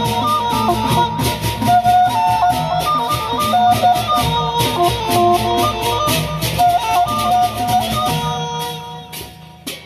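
Sasak gendang beleq gamelan playing: a stepping melody over quick, even cymbal clashes, kettle gongs and large barrel drums. The music thins out and stops near the end.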